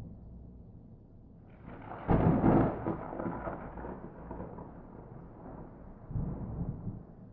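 Thunder with no rain: a fading low rumble, then a loud clap about two seconds in that rolls away into a long rumble, and a second, weaker peal of rumbling near the end.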